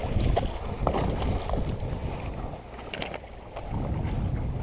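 Wind buffeting the microphone, a low rumble throughout, with a few short clicks about three seconds in.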